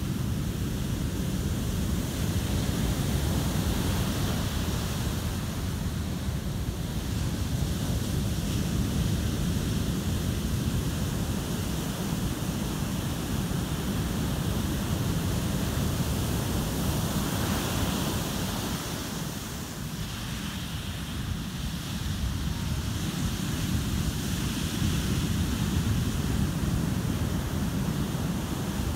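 Heavy ocean surf breaking and washing up a sand beach in a steady rumble, with wind buffeting the microphone.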